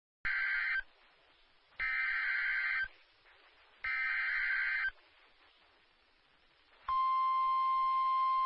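Emergency Alert System SAME header on NOAA Weather Radio: three bursts of buzzing digital data tones, each about a second long and about a second apart, encoding a special marine warning. About seven seconds in, the steady 1050 Hz weather radio warning alarm tone begins.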